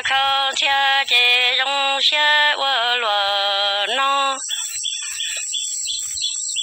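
A voice singing Hmong kwv txhiaj, a chant-like line of long, wavering held notes. The singing stops a little over four seconds in, leaving a faint high steady whine with light ticking.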